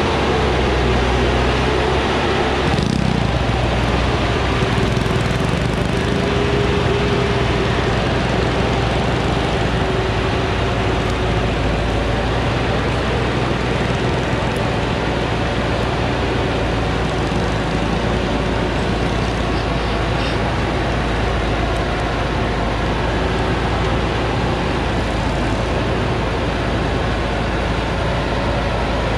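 Diesel engine of a heavily loaded Thaco Forland 4WD truck running steadily under load as it crawls up a steep dirt track.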